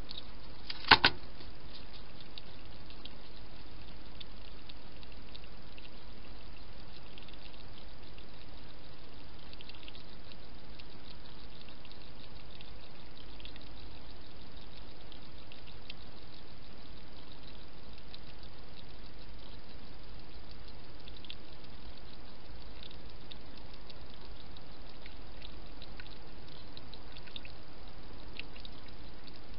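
Hedgehog lapping from a shallow dish: faint, irregular wet ticks over a steady hiss, with a sharp double knock about a second in.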